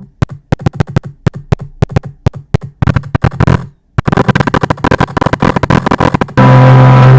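Discord call sound effect chopped into rapid stuttering clicks, like a glitching loop, with a short break a little over halfway. Near the end the call tone comes back in and plays steadily and loudly.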